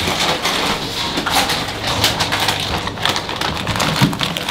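Close-miked eating: wet chewing and mouth clicks on a bite of a loaded sub sandwich, with a low hummed "mm". Near the end a chip bag crinkles.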